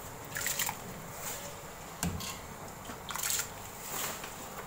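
Hand stirring soaked rice into water in a large metal pot: a few short splashes and sloshes, with one light knock about two seconds in.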